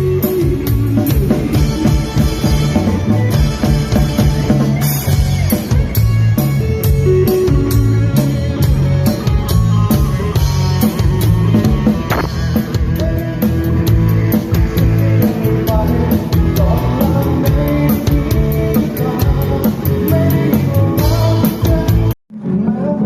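Background music: a band piece with drum kit and guitar keeping a steady, fast beat. It cuts off abruptly near the end and a quieter piece begins.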